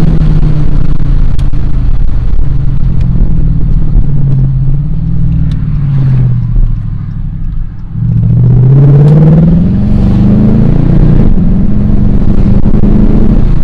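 Dodge Charger R/T's V8 engine pulling hard. Its pitch sinks over a few seconds and the sound drops away briefly about seven seconds in, then it revs up sharply in a rising climb and holds at higher revs.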